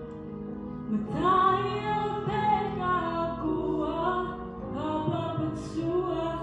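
A woman singing into a microphone over a steady instrumental accompaniment, a new phrase coming in about a second in with long held notes.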